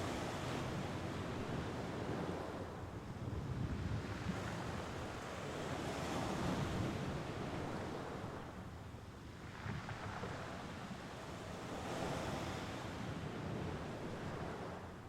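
Mediterranean Sea waves breaking and washing on the shore, swelling and ebbing every few seconds, with a rumble of wind on the microphone.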